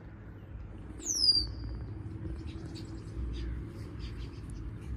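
A songbird gives one loud whistle sliding downward in pitch about a second in, followed by scattered short high chirps from birds, over a low background rumble.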